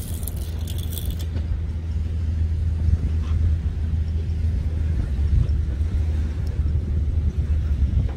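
Wind buffeting the microphone: a steady low rumble, with a short hiss in the first second.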